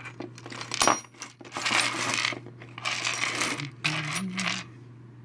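Small figurines clinking and clattering against one another and the tabletop as they are picked through and sorted by hand, in quick irregular runs of clicks.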